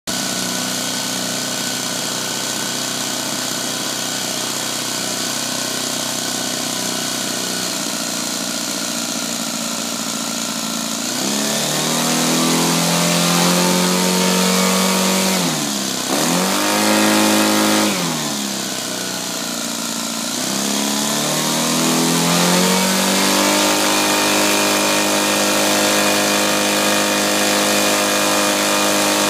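Saito 200 twin-cylinder four-stroke model aircraft engine on its first run. It idles steadily for about eleven seconds, then is throttled up, dips briefly and rises again, eases back toward idle, and is opened up once more to hold a steady higher speed until near the end.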